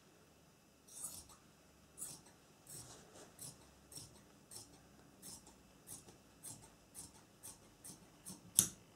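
Dressmaking shears snipping through lining fabric in a row of short cuts, about two a second, starting about a second in, with the loudest snip near the end.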